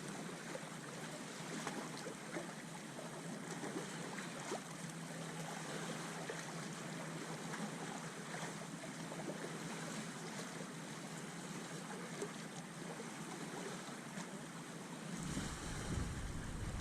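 Steady outdoor seaside ambience of faint water and wind noise with scattered light ticks; about fifteen seconds in, wind starts buffeting the microphone with a low rumble.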